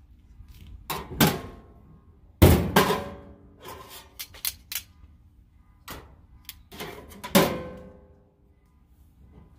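Stainless-steel tongs knocking and clattering against the stainless steam-table pans and lids of a hot dog cart: a string of metal clanks and clicks, each ringing on briefly, the loudest about two and a half seconds in and again around seven and a half seconds.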